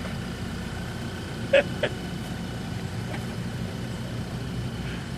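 Jeep engine idling steadily as it sits on the rock climb, with two short sharp sounds about a second and a half in.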